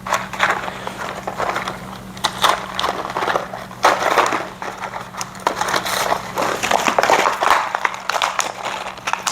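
Plastic packaging crinkling and rustling as it is handled and torn open, with many small clicks and rattles mixed in, likely the small parts inside.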